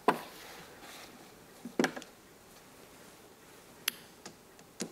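Mahjong tiles clacking onto the table as players draw and discard: a sharp click right at the start, another nearly two seconds in, then a few lighter clicks near the end.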